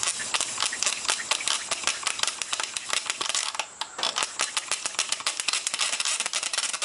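Hand-drill friction fire: a horseweed spindle spun back and forth between the palms, its tip grinding in the notch of a pine fireboard with a fast, rhythmic rasping rub and a short break a little under four seconds in. The rubbing is building friction heat, making smoke and dust on the way to an ember.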